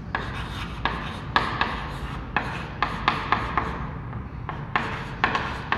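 Chalk writing on a chalkboard: a string of short, irregular scratching strokes as words are written out by hand.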